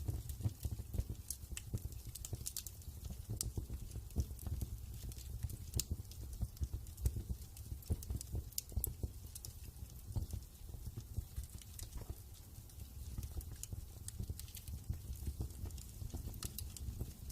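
Wood fire crackling in a fireplace: a dense, irregular run of sharp pops and snaps over a steady low rumble.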